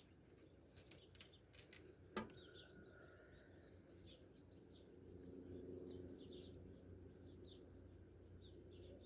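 Faint small-bird chirps and calls in the background, with a few sharp clicks in the first two seconds, the loudest about two seconds in.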